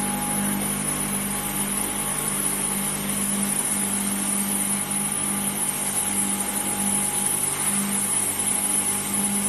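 Steady machinery noise of a vacuum-process (V-process) molding line in a foundry: a low hum that swells and fades unevenly, with a thin, steady high whine above it.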